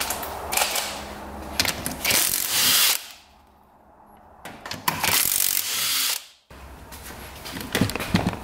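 A power tool run in two bursts of about a second each, with quieter tool handling between, loosening fasteners during an engine top-end teardown.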